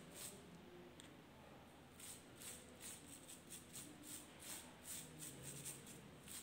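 Faint, scratchy strokes of a paintbrush dabbing paint onto plastic bubble wrap, repeating about three times a second from about two seconds in.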